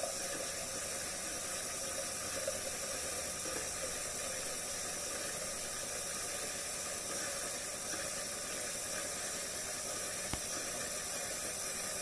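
Cecotec Cumbia 9000 automatic coffee machine frothing milk with steam and pouring it into a glass: a steady hiss that cuts off suddenly at the very end.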